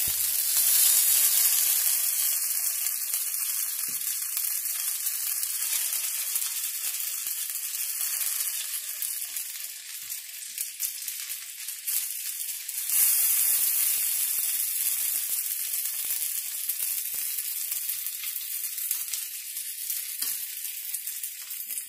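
Potato pancakes frying in shallow oil in a frying pan: a steady hissing sizzle that swells louder about a second in and again about halfway, with faint taps and scrapes of a fork turning them in the pan.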